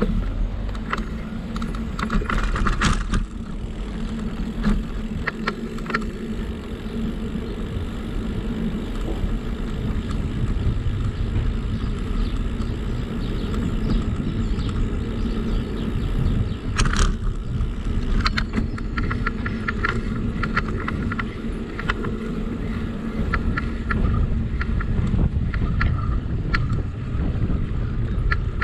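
Steady rumble of a moving bicycle, rolling and wind noise, with bursts of rattling clicks from the bike, heaviest about 17 seconds in and through the later part.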